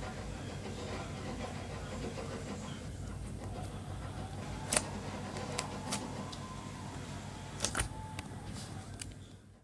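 Slime being handled, with a handful of sharp clicking pops in the second half, a cluster of them close together near the end, over a steady low background hum; the sound fades out at the end.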